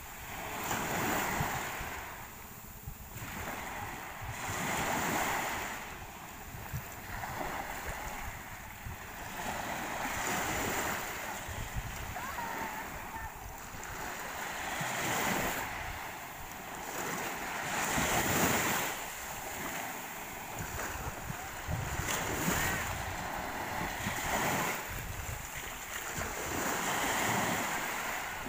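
Sea waves breaking and washing up the shore, the surf swelling and fading every few seconds, with wind rumbling on the microphone.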